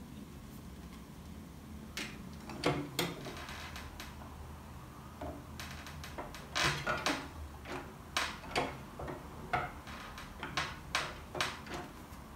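Desktop wire-binding punch machine being worked: cover boards slid into its punch slot and the handle pulled down, giving a scattered series of sharp clicks and clacks. A few come about two seconds in, and they come more often in the second half.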